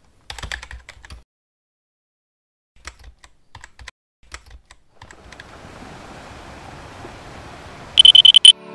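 Keyboard-typing sound effect: scattered clusters of key clicks as title text types out. From about five seconds in, a hiss of static swells, and near the end a loud, choppy, high-pitched electronic glitch buzz cuts in.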